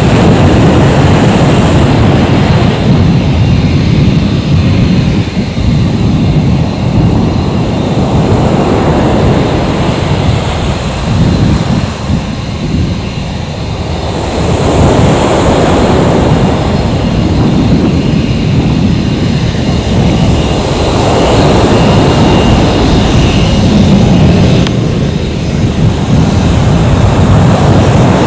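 Airbus A321's IAE V2500 turbofan engines running at taxi power as the airliner taxis close by: a loud, steady jet rush over a deep rumble, swelling and easing every few seconds, with a faint high whine.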